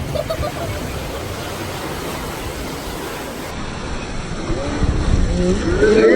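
Rushing, splashing water from a water-ride boat and wind buffeting the microphone, a steady loud rush, with voices beginning to rise near the end.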